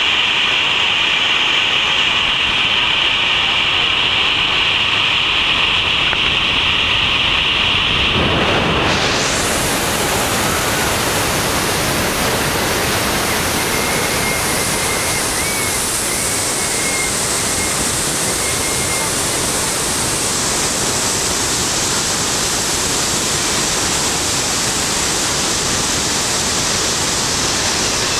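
Niagara Falls close up: a loud, steady rush of falling water. About eight seconds in, the sound changes abruptly and becomes brighter and fuller.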